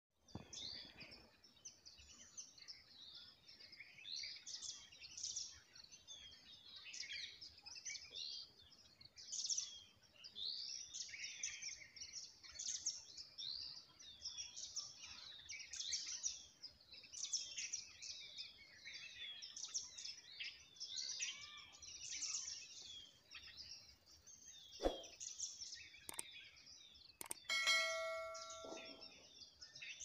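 Many small birds chirping together in a continuous, busy chorus of short high calls. Near the end come a few sharp clicks and a brief bell-like chime.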